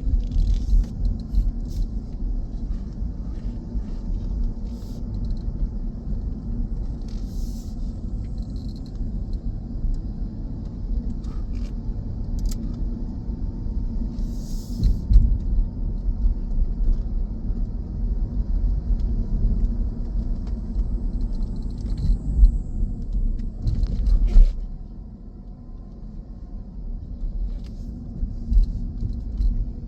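A car driving along a road: a steady low rumble of road and engine noise, which eases off for a couple of seconds about 25 seconds in before building again.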